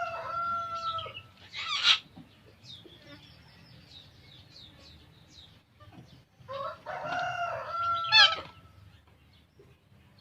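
A rooster crowing twice, about six seconds apart, each crow ending in a loud shrill note, with faint high chirps of small birds in between.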